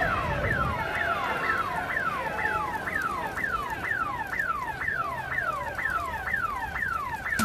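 Car alarm sounding, a repeating falling whoop about three times a second, with a second alarm overlapping near the start.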